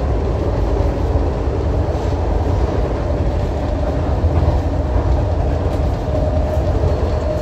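SEPTA Market–Frankford Line M-4 train running at speed along the elevated track, heard from inside the car: a steady low rumble with a faint, even mid-pitched whine that grows a little stronger near the end.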